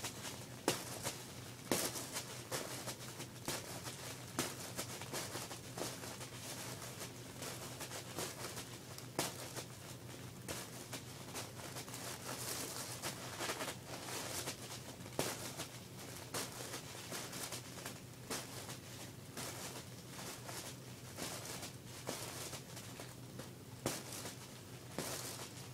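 Tissue paper crinkling and tearing as a cat claws and rips at it: an irregular run of rustling with sharper crackles and rips throughout, over a steady low hum.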